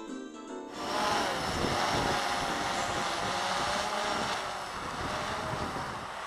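Guitar-like background music ends less than a second in. A Blade 350 QX quadcopter's electric motors and propellers then buzz steadily in flight, their pitch wavering up and down, with some wind noise on the microphone.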